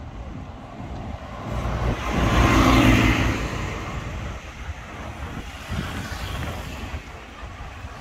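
A motor vehicle passing close by on the street: engine and tyre noise swell to a peak about three seconds in, then fade away.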